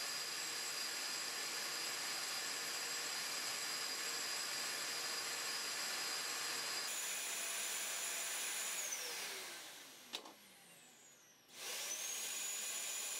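Wet-and-dry vacuum cleaner sucking powder through a robot-held hose, running steadily with a high motor whine. A bit over halfway through, the whine falls in pitch and the noise dies away over about two seconds, with a single click. Near the end it quickly rises again to full running.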